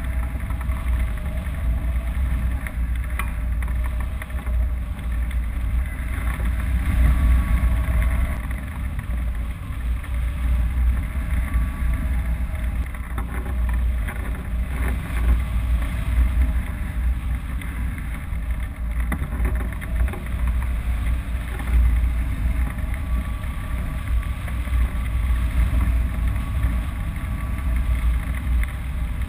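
Steady wind rushing over the microphone of a camera mounted on a hang glider's wing in flight: a heavy, low, buffeting rumble that surges and eases.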